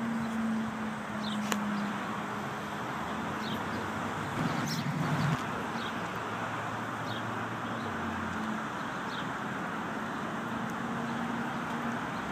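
1985 Chevrolet Monte Carlo SS V8 idling steadily, with a few faint bird chirps.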